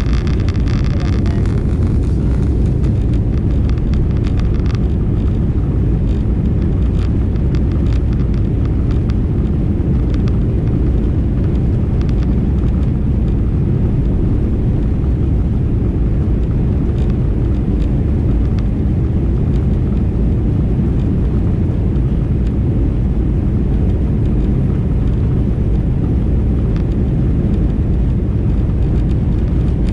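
Steady low rumble of a jet airliner taxiing, heard from inside the cabin: engine and rolling noise with no change in pitch or level.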